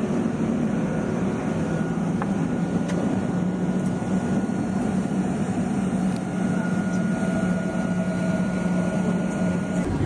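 Jet airliner cabin noise in flight: a steady dense rumble and hiss of engines and airflow, with a constant low hum.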